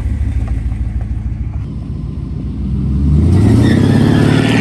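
Loud truck engine and exhaust running, then revving up about three seconds in with its pitch rising, loudest just before it drops off suddenly at the end.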